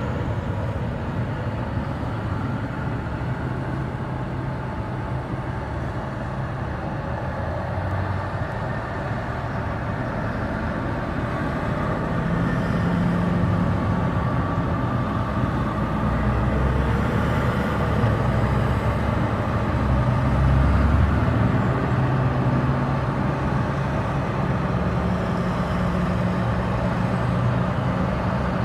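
A convoy of large farm tractors driving past on a road, their diesel engines giving a steady low drone. It grows louder about halfway through as the nearest tractors go by, then eases slightly.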